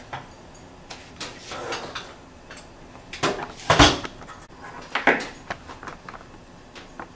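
Metal skewers and a metal grill rack clattering and knocking as skewered kebabs are handled and set down. There are a few separate knocks, the loudest nearly four seconds in and another about five seconds in.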